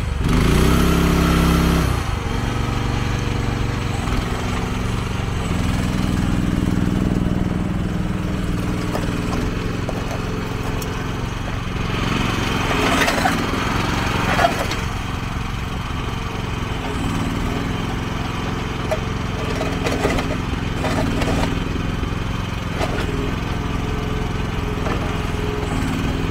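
Small engine of a Landhero QH12 mini excavator running under hydraulic load as the boom and bucket are worked, its note higher for the first couple of seconds, then settling lower and rising and falling. About halfway through, a few sharp knocks and scrapes.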